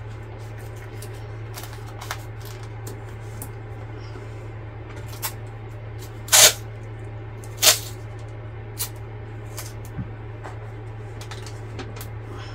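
Stiff holographic plastic sheet crinkling and crackling in short bursts as it is handled, loudest twice in the middle, over a steady low hum.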